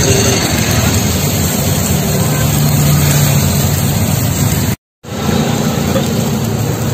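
A steady, loud low rumble with hiss. It drops out completely for a moment about five seconds in.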